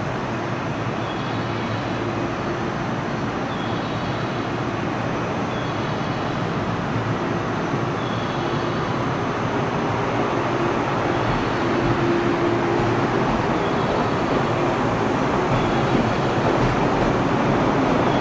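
JR 103-series electric commuter train pulling away from the platform and running past, its traction motors humming over the rumble of the wheels. The sound grows louder as the train picks up speed.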